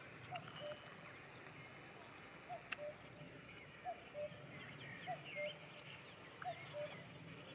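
A bird repeating a two-note cooing call about every second and a half, the second note slightly lower than the first. Smaller birds chirp higher up, and there is one sharp click a little under three seconds in.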